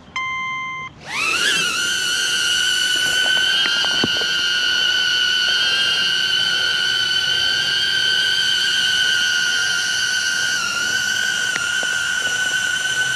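A short beep, then about a second in the HoverAir X1 mini drone's propellers spin up with a quick rising whine that settles into a steady, high-pitched whine as it takes off.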